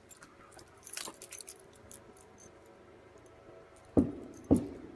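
Keys jingling faintly, then two loud, sharp knocks about half a second apart near the end.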